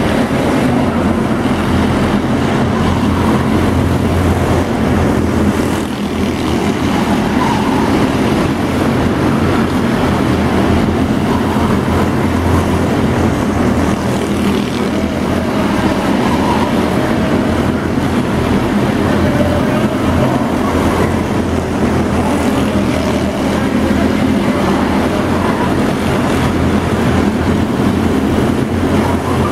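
Engines of several small stock cars racing laps around an indoor arena oval: a continuous loud engine drone whose pitch rises and falls as the cars accelerate and pass.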